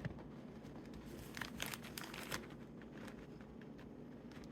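Plastic baggie crinkling faintly, with scattered small clicks. Pliers are being worked inside a glued plastic action figure's torso to pry it apart.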